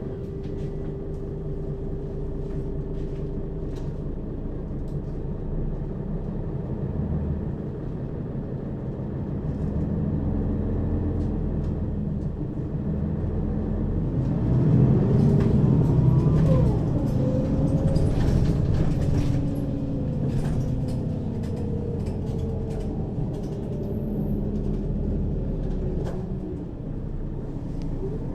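Mercedes-Benz Citaro city bus with a ZF Ecomat 2 6HP-592 C automatic gearbox driving, heard from inside the passenger compartment over the second axle. About halfway through, the engine pulls harder and gets louder, with a whine that rises in pitch, then eases off and settles back to a steadier run.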